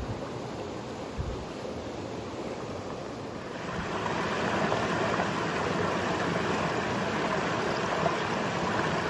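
Mountain stream rushing over rocks as a steady hiss, growing louder about three and a half seconds in. A dull bump comes about a second in.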